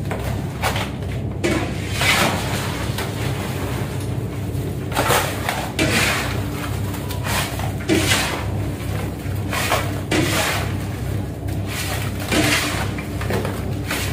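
Fish and crushed ice being scraped and slid across a boat deck into plastic baskets: a rough swish every second or two. Under it runs a steady low machine hum.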